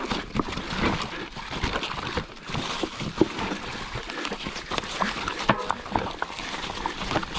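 Mountain bike clattering over the rocks of a creek bed, with many irregular knocks and rattles from the wheels and frame.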